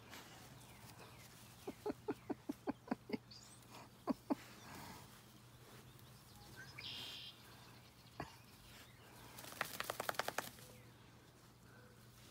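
Sharp clicks and rattles from a small dog scrambling against wire fencing: a run of about seven evenly spaced clicks, two more a second later, and a quick flurry of rattling near the end.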